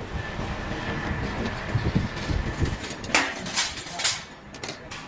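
Laser cutting machine running: a steady mechanical hum with a faint high whine. A few short, sharp noisy bursts come from about three seconds in.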